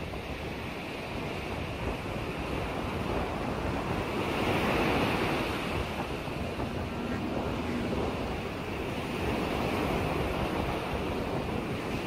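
Choppy lake waves washing and lapping, with wind buffeting the microphone. The wash swells about four seconds in and again near the end.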